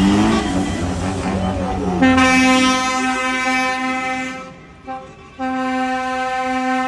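Truck air horn blowing long, steady blasts: one starting about two seconds in and held for over two seconds, a short toot near the five-second mark, then another long blast to the end.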